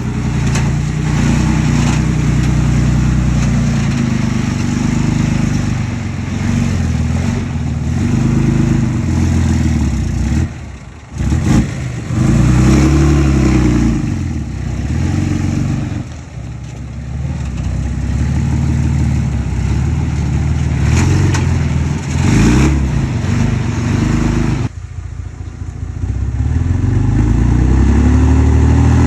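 Komatsu D20P bulldozer's diesel engine working under load, its pitch rising and falling repeatedly as it revs. The engine drops back sharply twice, about a third of the way in and again near the end, then climbs again.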